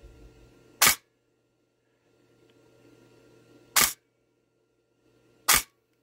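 Tokyo Marui NGRS airsoft electric gun with a Gate Titan control board fired on semi three times, about a second in, near four seconds and about five and a half seconds in. Each trigger pull gives one short, sharp shot of the gearbox cycling once, with no double or burst fire.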